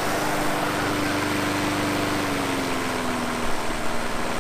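Petrol walk-behind rotary lawn mower engine running steadily at speed, its pitch sagging slightly about halfway through, with a few louder jolts near the end.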